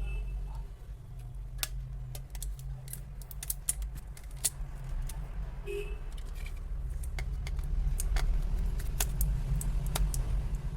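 Small sharp clicks and taps, scattered and irregular, from metal tools and small parts being handled while a smartphone is worked on. Under them runs a steady low rumble.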